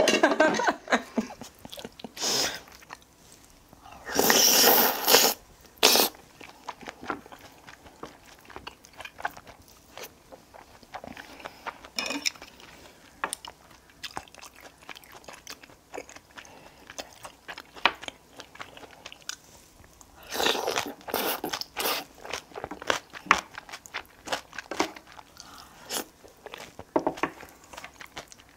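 A person eating curry and rice close to the microphone: crunchy bites and chewing, with irregular louder bursts, the biggest about four seconds in and again about two-thirds of the way through.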